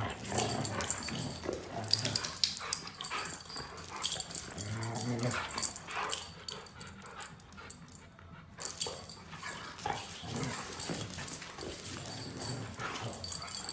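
Huskies growling at each other while play-wrestling, with low, pitched rumbles coming and going among scuffling noises. One sharp, loud sound stands out about nine seconds in.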